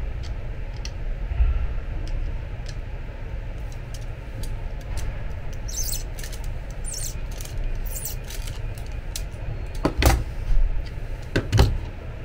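Pliers and a second hand tool clicking, clinking and scraping on the metal lead screw and gear of an electric bed actuator as the gear is worked off the screw, over a steady low hum. A few louder knocks come near the end.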